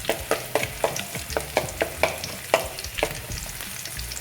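Garlic sizzling in hot oil while a utensil stirs it, scraping and tapping against the pan about four times a second.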